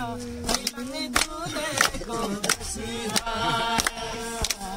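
Kumaoni folk singing with hand claps keeping a steady beat, about one and a half claps a second.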